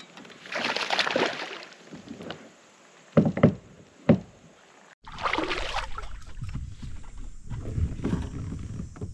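Splashing, then three sharp loud knocks on a plastic kayak as a hooked largemouth bass is brought to the boat and landed, followed by low rumbling and small knocks of handling in the kayak.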